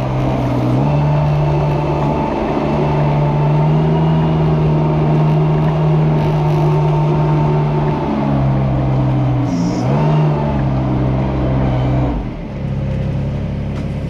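Engine of a small manure-scraping vehicle running steadily under load as it pushes its blade along a slatted cowshed floor. The engine note shifts down and up a couple of times and drops to a lower, quieter running about twelve seconds in.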